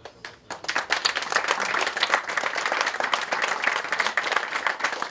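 Audience applauding: a crowd of seated people clapping, starting about half a second in and building quickly to a steady, dense clatter of hand claps.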